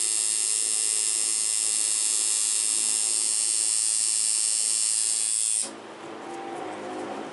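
Electric tattoo machine buzzing steadily with a high, even tone, then cutting off suddenly about five and a half seconds in.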